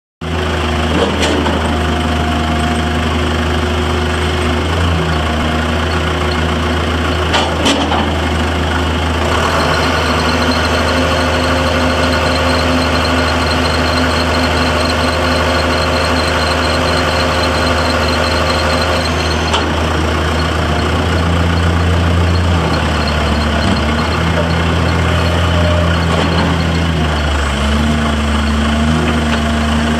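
John Deere 6200 tractor's four-cylinder diesel engine running steadily in place while the front loader is raised and lowered. A higher whine joins it for about ten seconds in the middle.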